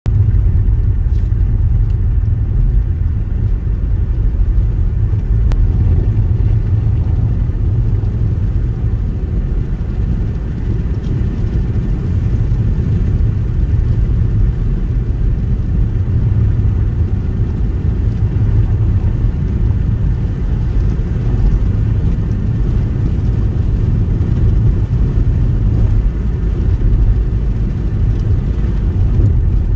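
Car cabin noise while driving at a steady speed: a steady low rumble of engine and tyres on the road, heard from inside the car.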